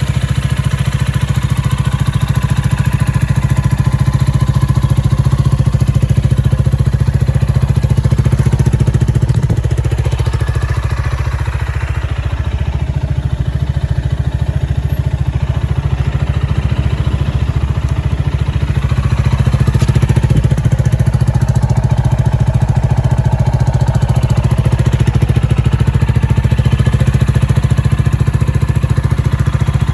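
Gilera AC4 250 cc motorcycle engine running steadily at a low, even speed, getting a little quieter about a third of the way through and picking up again past the middle.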